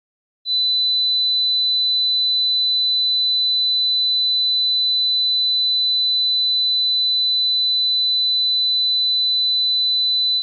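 A single steady, high-pitched electronic sine tone with one pure pitch. It starts about half a second in, holds loud and unchanging for about ten seconds, then cuts off suddenly.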